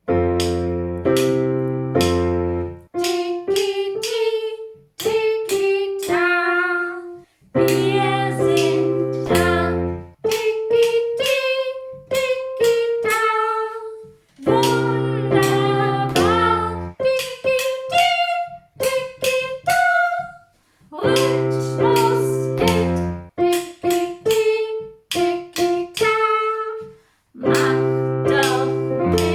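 A song with a woman singing over struck piano chords, in short phrases with brief pauses between them.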